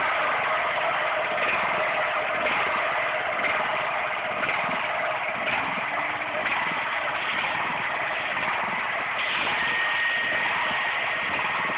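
Petrol-engined pressure washer running steadily, its high-pressure water jet spraying across the wet hard court surface.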